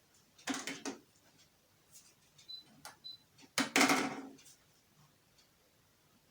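Clicks and handling knocks from switching on a TV and a decoder: two short clusters, the second the louder, with two faint brief high beeps between them.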